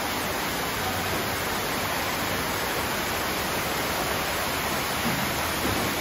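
Steady, even rushing noise of falling water.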